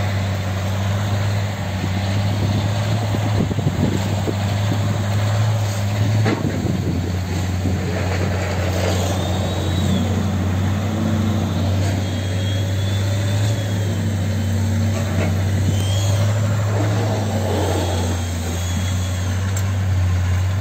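Soviet ZIL truck's engine running under load as it tows a loaded flatbed trailer up a snow-covered rise, a steady low drone. A faint wavering high whine comes and goes through the middle.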